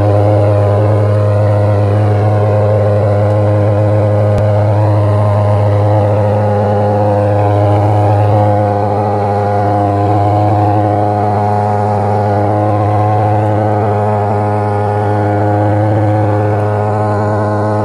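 Portable pulse-jet thermal fogger running at full output as it blows out a plume of fog: a loud, steady, low-pitched buzzing drone.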